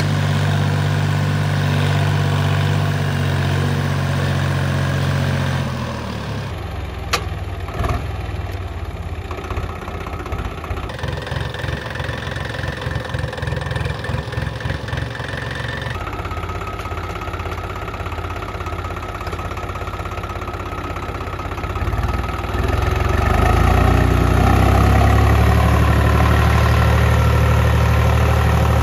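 Swaraj 735 FE tractor's three-cylinder diesel engine running as it pulls a plough through the field, with a steady low engine note broken by a few abrupt changes where the shots are cut. A single click comes about seven seconds in, and the engine grows louder and deeper about three quarters of the way through.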